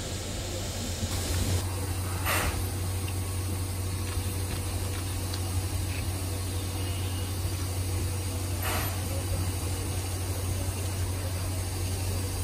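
C11 325 steam tank locomotive standing at the platform, steadily hissing steam over a low hum. There are two short, louder bursts of hiss, about two seconds in and again near nine seconds.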